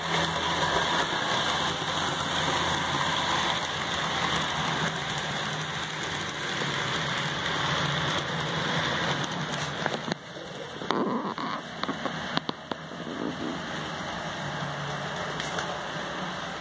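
HO scale model freight train running along the track: a steady rumble and hiss of small wheels on the rails. About ten seconds in it drops in level and turns to scattered clicks.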